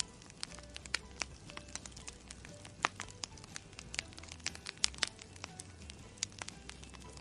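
Irregular sharp crackling clicks, several a second and uneven in strength, over faint background music.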